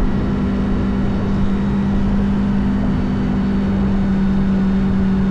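An engine running steadily: an even low hum over a constant rumble.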